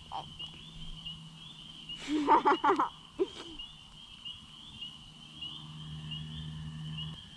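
A steady chorus of frogs with high, rapidly repeating calls, and a louder burst of lower, pulsing croaks about two seconds in that lasts under a second.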